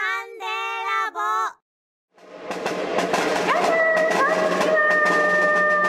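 Three short high-pitched tones, then a live percussion-and-music performance starts about two seconds in: a dense wash of sound with quick taps and long held notes.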